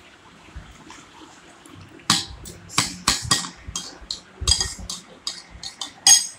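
Irregular clinks and clatter of dishes and cutlery, beginning about two seconds in, some with a short ring.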